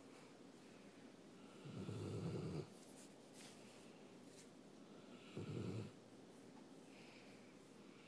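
Greater Swiss Mountain Dog snoring in its sleep: two low snores, one about two seconds in and a shorter one about five and a half seconds in.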